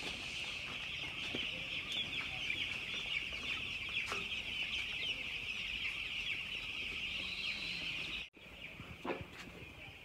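A large flock of ten-day-old broiler chicks cheeping together: a dense, continuous chorus of high peeps that cuts off abruptly about eight seconds in.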